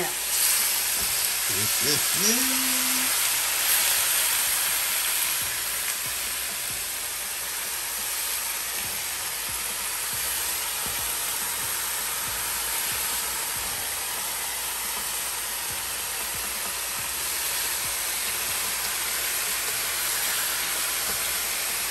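Pork pieces frying in hot vegetable oil in a pot on high heat: a steady sizzle as the meat browns.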